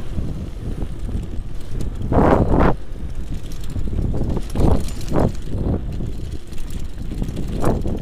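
Mountain bike rolling fast down a dirt forest trail: a steady low rumble of tyres and air over the microphone, broken by irregular rattling jolts as the bike hits bumps, several between about two and six seconds in and another near the end.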